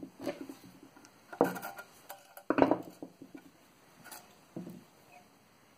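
Handling noise of small metal parts and a screwdriver against a wooden saw handle on a wooden workbench: five or so separate clicks and knocks, the loudest about two and a half seconds in, thinning out toward the end.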